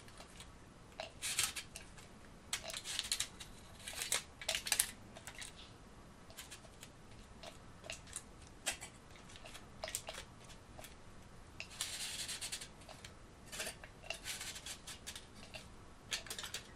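Aluminium foil crinkling and rustling in short, irregular bursts as it is handled and pressed over a shisha bowl.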